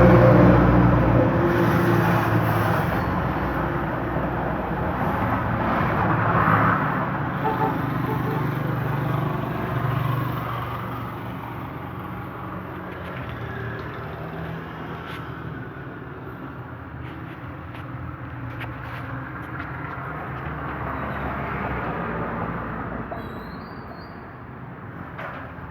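Overhauled Suzuki F6A three-cylinder engine running steadily, loudest at first and easing off gradually.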